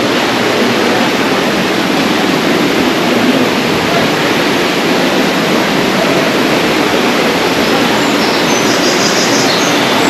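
Steady rush of water in a rocky mountain gorge. A bird chirps in quick, high, repeated notes near the end.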